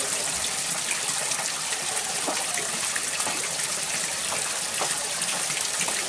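Steady rush of running water, with scattered small splashes and drips.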